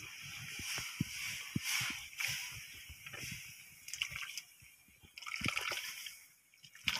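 Broth sloshing in a wok as it is stirred with a ladle, with scattered light clicks and knocks.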